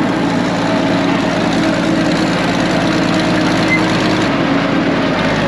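Old Caterpillar D6 bulldozer's diesel engine running steadily at an even speed, just brought back to life.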